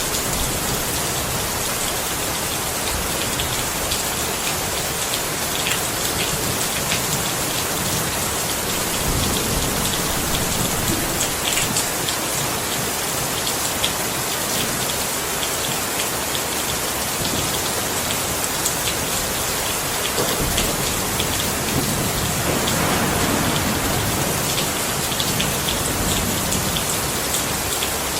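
Steady heavy rain falling on a surface: an even hiss dotted with the ticks of individual drops. A low swell rises briefly near the end.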